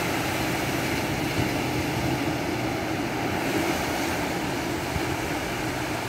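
Steady rushing noise of small waves breaking and washing up a sandy beach.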